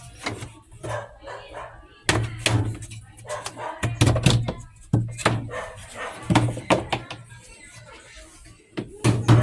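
A dog barking over and over in short, sharp barks, with background music.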